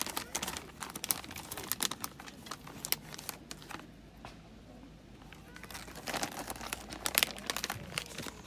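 Crinkling and rustling from handling something like packaging or a bag, with many light clicks and knocks; it quietens in the middle and picks up again near the end.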